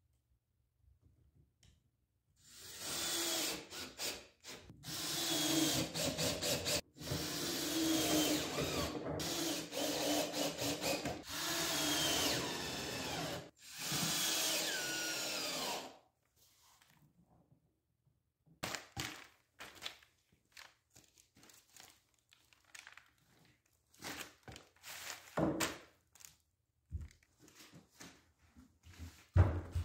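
Cordless drill driving screws into an OSB panel in a string of runs lasting a second or two each, the motor's pitch sliding as it loads up. After the drilling stops, scattered knocks and thuds of the wooden bench being handled.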